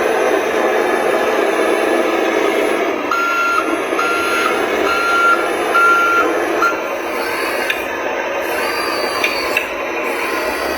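Reversing beeper on a remote-control toy construction vehicle: about five evenly spaced beeps a little under a second apart, the last cut short, over the steady whir of the vehicle running.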